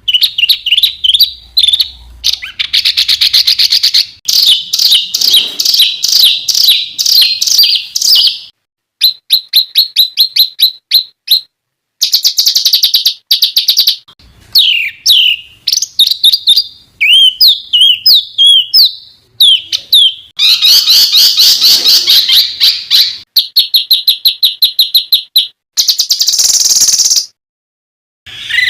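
Songbird masteran track: loud, varied songbird song stitched together, with fast runs of repeated sharp chirps, sweeping whistles and trills. The phrases start and stop abruptly, with short silences between them.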